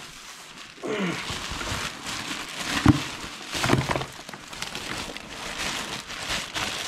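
Plastic carrier bag rustling as a catch of fresh sabrefish is tipped out of it, the wet fish sliding and slapping into a plastic basin, with a couple of louder knocks about three and four seconds in.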